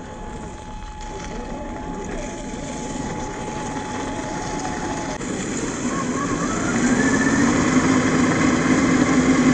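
RC crawler's 550 brushed electric motor and geared drivetrain whining under throttle. It grows steadily louder, and from about six seconds in it climbs in pitch and runs harder.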